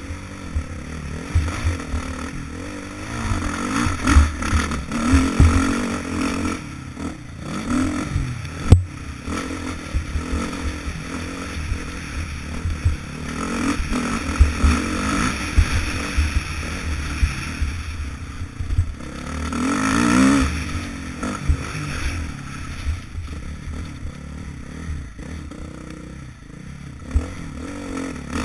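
Dirt bike engine revving up and down repeatedly while being ridden hard over rough ground, heard from the rider's helmet, with frequent knocks from bumps and one sharp knock about nine seconds in.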